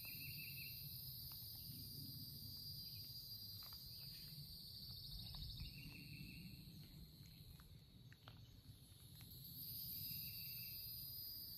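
Woodland insect chorus, a steady high-pitched drone, with a bird singing a short trilled phrase three times about five seconds apart. Faint scattered clicks are heard throughout.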